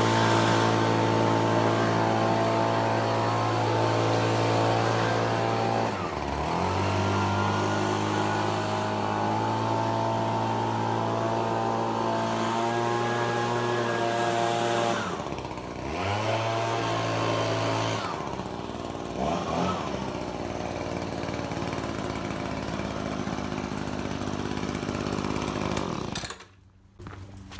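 Echo PB-2520 handheld leaf blower's small two-stroke engine running at high throttle, with a brief dip in pitch twice as the throttle is eased off and opened again. It then drops to idle, blips once, and cuts off near the end as it is shut down.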